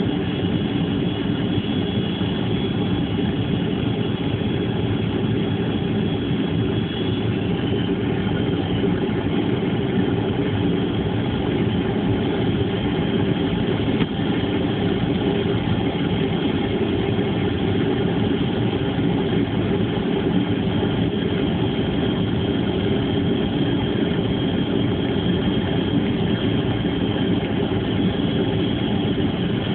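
Steady drone of an airliner's engines heard inside the cabin, with a thin high whine running over it.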